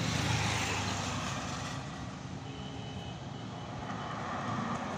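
Steady low background rumble of vehicle noise, easing a little over the first two seconds.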